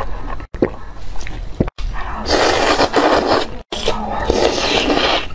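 Close-up eating sounds: noisy slurping of noodles and other mouth noises. They come in short spliced pieces that cut off abruptly several times.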